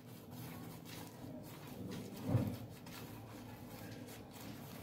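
Faint soft scraping of fingers working a wet garlic, spice and oil marinade around a stainless steel plate, with one brief low sound about halfway through.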